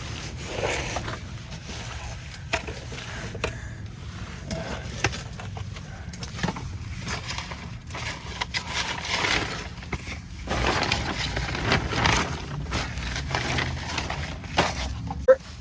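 Someone crawling on elbows and toes over 6 mil plastic vapor-barrier sheeting in a crawl space: irregular rustling, crinkling and scraping of the plastic and a disposable coverall, with occasional knocks.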